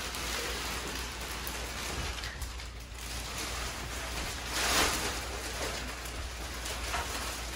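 Clear plastic wrap rustling and crinkling against the flocked branches of a live Christmas tree as the tree is handled and lifted upright, with one louder swish about five seconds in.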